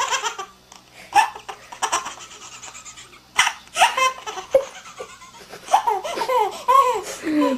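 A person laughing, in scattered short bursts and then a quicker run of laughs in the last two seconds.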